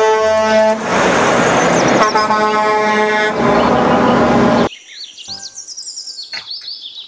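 A Mack semi-truck driving past with loud engine and road noise. Its air horn sounds twice, the second blast about two and a half seconds in. The sound cuts off abruptly about two-thirds of the way through, leaving faint chirping and a few light clicks.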